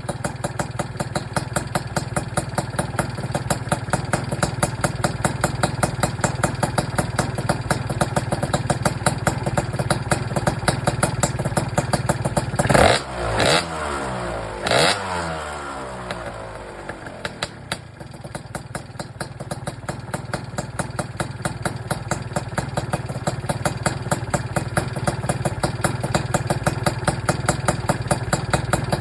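Tuned two-stroke Gilera Runner scooter engine, fitted with Malossi and PM Tuning parts, idling with an even rapid pulse. About halfway through it is blipped twice in quick succession, the pitch rising sharply and falling back, before it settles to idle again.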